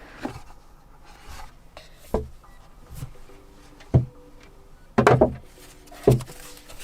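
Cardboard keyboard box being handled and opened: cardboard rubbing and scraping, with several dull knocks, the loudest about four, five and six seconds in.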